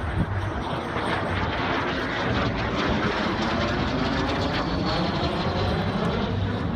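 Aero L-39C Albatros jet engine noise, loud and steady, from a jet diving overhead, its pitch sliding as it passes.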